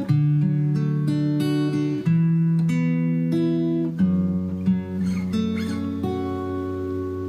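Background music: acoustic guitar playing plucked notes and strummed chords, changing chord about every two seconds.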